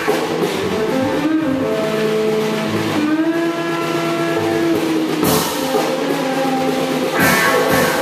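Music. It thins to a few long held notes about a second in, and the fuller sound returns after about five seconds.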